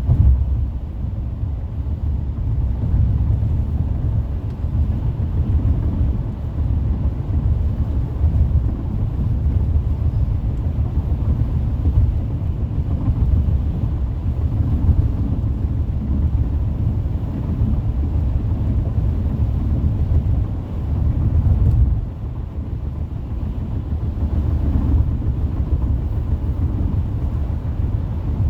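Steady low road and tyre rumble of a car cruising on a freeway, heard inside the cabin.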